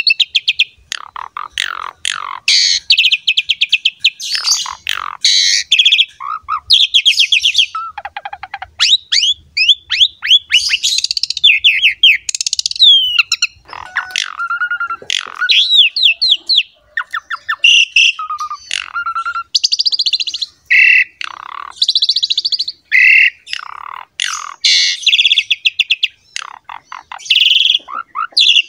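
Pied starling (jalak suren) in full, vigorous song: a nearly unbroken run of loud, varied whistles, slurred notes and fast harsh rattling trills, with only brief pauses.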